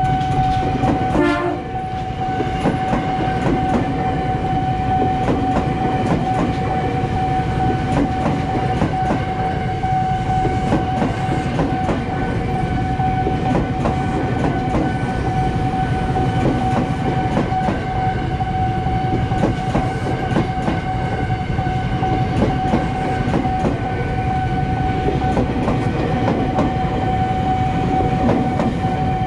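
KRL commuter electric train passing close by, its wheels clattering over the rail joints with a steady low rumble. A steady high warning tone, the level crossing's alarm, sounds over it.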